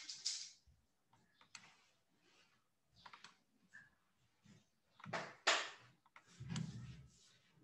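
Faint, irregular clicks and taps from a computer mouse and keyboard, with a louder, longer noise about five seconds in.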